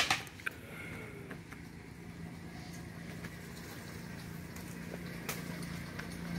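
A sharp knock at the start, then an engine running with a steady low hum, joined by faint scattered clicks and rustles.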